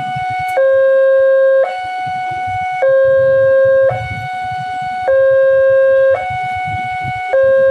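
Railway level-crossing warning alarm sounding: an electronic two-tone signal alternating between a lower and a higher tone, each held about a second, the lower tone louder.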